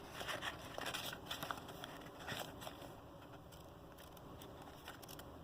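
Paper and card being handled: soft rustling with a few light taps for the first two or three seconds, then fainter.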